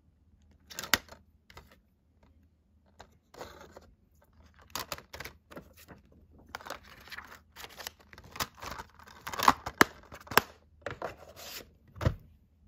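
Handling of a clear plastic multi-disc DVD case: irregular clicks, scrapes and rustles of the plastic as the disc trays are turned and the case is shut. A dull knock about 12 seconds in as the case is set down on a wooden table.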